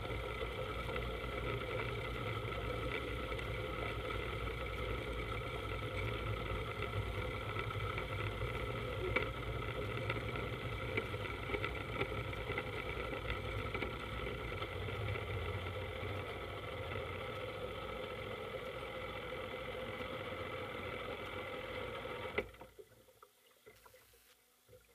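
Speedboat engine running steadily, with noise from the water and the hull. The engine cuts out abruptly about two and a half seconds before the end, and the sound drops away to a faint background.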